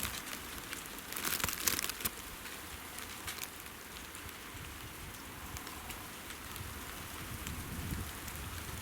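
Blizzard: wind-driven snow making a steady hiss with scattered sharp ticks, and a denser burst of crackling about a second in.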